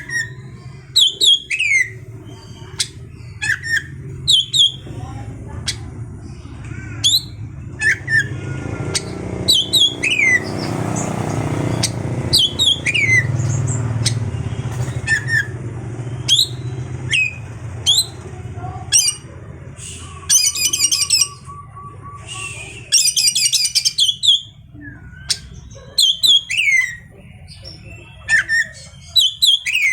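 Oriental magpie-robin (kacer) calling over and over with short whistles that slide downward. About two-thirds of the way through come two bursts of fast, high chattering trills. A low hum runs underneath.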